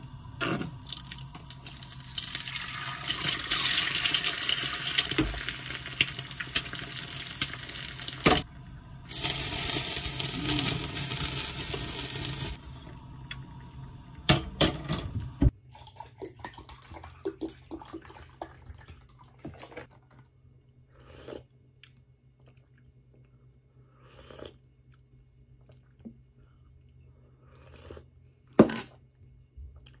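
Eggs frying in hot oil in a rectangular nonstick pan, sizzling loudly in two spells with a short break between. About halfway through the sizzle cuts off, leaving quiet clicks and taps of a spoon and dishes, with one sharp click near the end.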